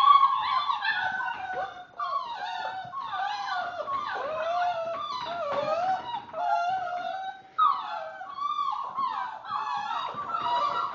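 Several puppies whining and crying at once, many wavering high-pitched cries overlapping with hardly a break, from puppies shut behind a baby gate and wanting through.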